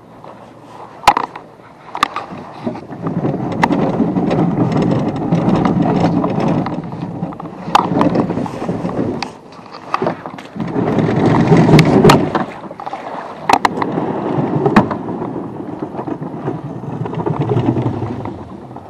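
Small plastic dinghy being pushed down a grooved concrete boat ramp: its hull grinds and scrapes over the concrete in three long pushes with short pauses between them, with several sharp knocks from the oars and gear on board.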